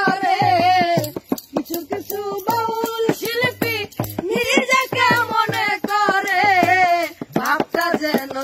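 A woman singing a Bengali folk song in long, wavering held notes, with a steady beat behind her voice.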